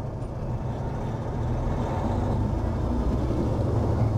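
Caterpillar C15 Acert diesel of a 2011 Peterbilt 389 running as the truck rolls forward, a steady low rumble that grows gradually louder.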